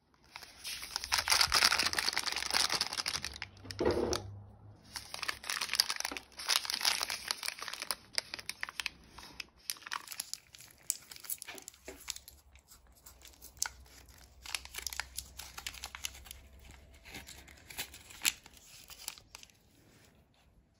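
Plastic wrapper of a Vitakraft Catstick treat packet crinkling and tearing as it is handled and opened, in dense bursts over the first several seconds. It thins to fainter, scattered rustles and clicks through the second half.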